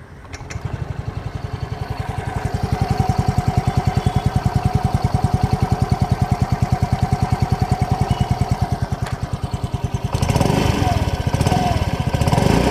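Yamaha RayZR 125 Fi Hybrid scooter's single-cylinder engine starting with no cranking sound about half a second in, then idling with an even, rapid pulse. About ten seconds in it grows louder and rougher, as with a blip of the throttle.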